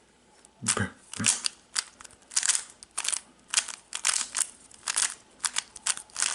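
A plastic Rubik's Cube being turned quickly by hand: a string of sharp clicks and scrapes as its layers snap round, a few each second, starting after a brief pause.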